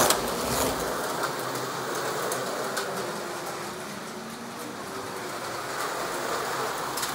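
Electric slot cars running on a plastic slot-car track, a steady whirring hiss with a faint wavering hum and a few light clicks.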